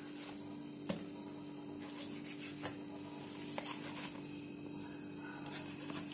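Knife cutting through a soft steamed dough roll on a steel plate, with several short light clicks about a second apart as the blade meets the plate.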